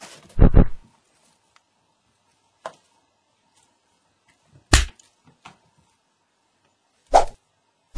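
Dubbed-in cartoon punch sound effects, hard whacking hits laid over a cat's paw swipes: a quick double hit about half a second in, then single loud hits a little before five seconds and near the end, with fainter ones between.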